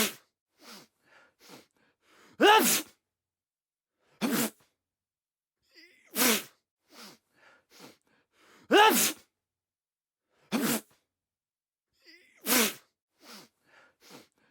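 A man sneezing again and again: about seven loud sneezes, one every second or two, with short breaths and sniffs between them. The same sequence repeats about every six seconds.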